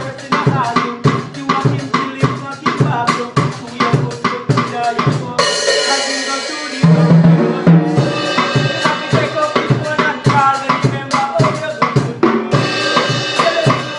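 Drums played live in a fast, busy beat of steady strikes. A cymbal crash washes over the beat about five and a half seconds in, and again near the end.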